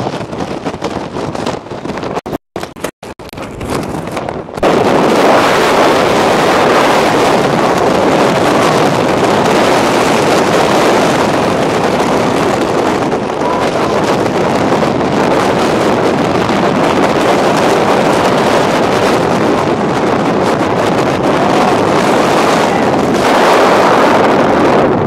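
Hurricane-force wind blasting across the microphone in a loud, steady rush, with two brief dropouts in the first few seconds. It grows sharply louder about four and a half seconds in and holds there.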